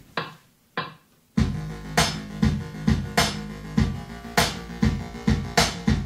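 A couple of button clicks, then about a second and a half in an Akai MPC Live sequence starts playing over speakers: a repeating synth bass line, the audio recording of an Arturia PolyBrute, with a hit about twice a second.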